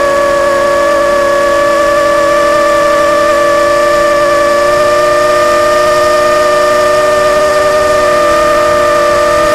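Quadcopter drone's electric motors and propellers whining at a steady pitch, with a rush of air from the propeller wash.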